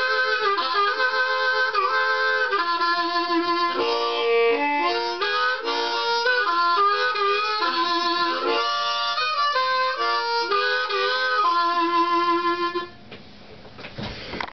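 Diatonic harmonica playing a train imitation: rhythmic chords, some bent in pitch. The playing stops about 13 seconds in, and a soft knock follows near the end.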